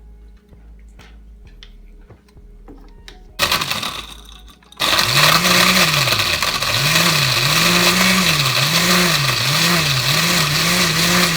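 Countertop blender blending Coke and ice: a short burst about three and a half seconds in, then from about five seconds in it runs loud and continuously, its motor pitch dipping and recovering again and again as it churns the ice.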